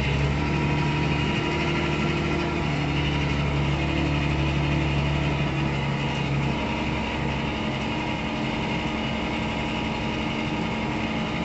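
Farm tractor's diesel engine running steadily, heard from inside the cab; its hum eases slightly about six and a half seconds in.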